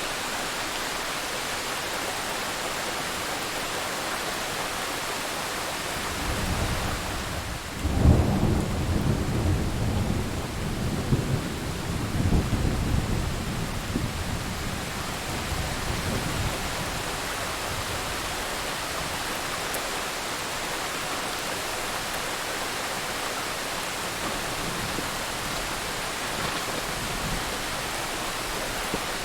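Thunderstorm: steady heavy rain hissing throughout, with a thunderclap about a quarter of the way in, a low rumble building into a sharp crack, then rolling for several seconds before fading back under the rain.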